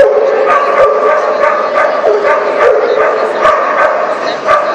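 A dog barking repeatedly, with sharp barks about three a second.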